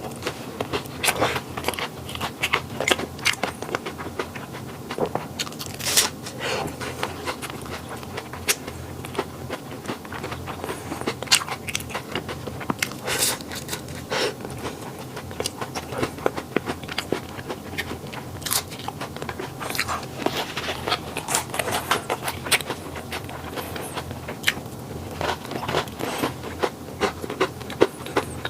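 Close-up eating sounds: bites into flaky Chinese pastry and chewing, with many irregular crisp crackles as the pastry layers break.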